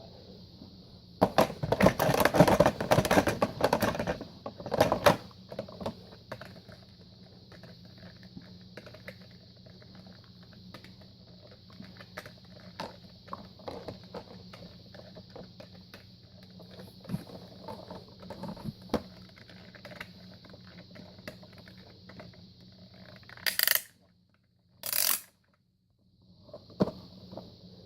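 Hard objects being handled: irregular clicks and clattering, busiest in the first few seconds, over a faint steady hum and hiss. Two loud short bursts come near the end.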